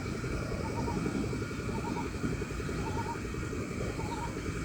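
Small DC motor of a homemade drill running steadily with a fast buzzing rattle. Faint short chirps recur about every second and a half.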